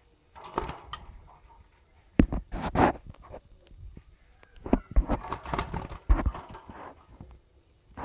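Pet budgerigars giving harsh squawks and chatter in three bursts, with a few knocks mixed in.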